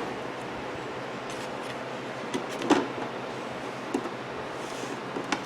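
A few light clicks and knocks of screws and a screwdriver against a wall clock's frame as it is being screwed back together, over a steady hiss.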